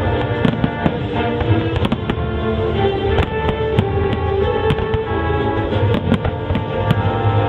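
Fireworks going off in rapid, irregular bangs and crackles over loud music accompanying the display.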